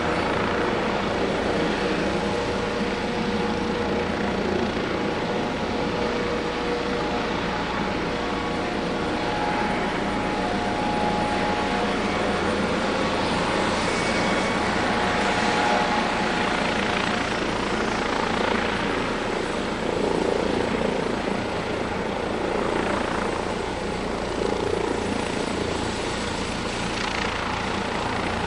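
Airbus Helicopters EC155B1 (H155) twin-turbine helicopter running: a steady turbine whine over dense rotor noise, with rotor noise swelling and easing several times in the second half.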